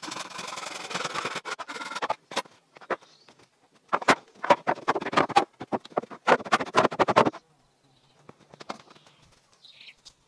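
Folding hand saw cutting through a wooden plank in quick, rasping strokes. After a short pause, another run of strokes on wood comes about four seconds in.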